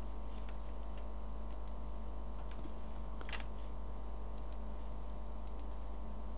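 A handful of faint, scattered computer keyboard and mouse clicks, one a little louder about three seconds in, over a steady low electrical hum.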